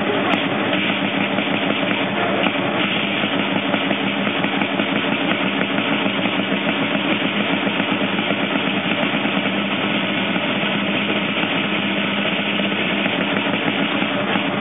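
Palio drum (tamburo) playing a continuous rapid roll, echoing off the walls of a small piazza.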